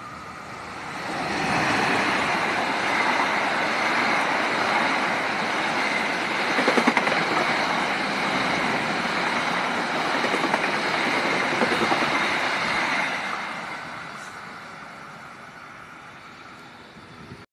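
Diesel-locomotive-hauled passenger train passing through the station without stopping. Wheel and rail noise swells about a second in and stays loud as the locomotive and coaches go by, with a few clattering wheel strikes midway. It then fades from about thirteen seconds as the train moves away.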